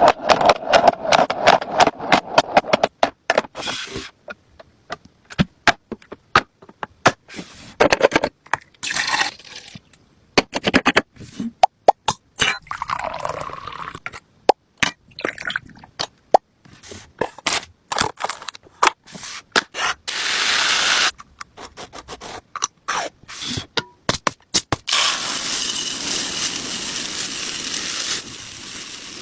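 Groceries and kitchen containers being handled and put away: a long string of clicks, taps and scrapes, with a few seconds of steady hissing rustle near the end.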